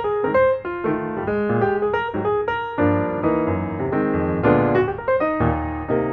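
Background piano music, notes played one after another.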